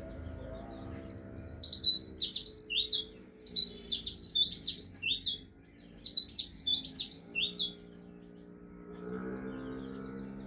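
Pleci (white-eye) singing a fast, high, twittering song in two long runs, the first from about a second in to around five and a half seconds, the second stopping just before eight seconds.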